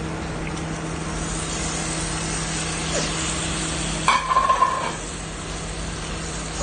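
Sardine pieces sizzling in oil and masala in a frying pan, a steady hiss over a low hum. About four seconds in, a short metallic clatter with a brief ringing tone, a utensil or plate knocking the pan.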